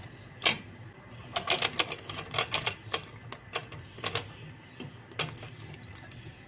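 Kumquats being tipped from a glass bowl into a steel pot of hot sugar syrup: a run of irregular sharp clicks and plops, some single and some in quick clusters, as the fruit drops in and knocks together.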